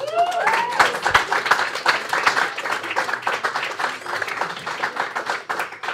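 Audience clapping, with a short rising whoop of cheering in the first second.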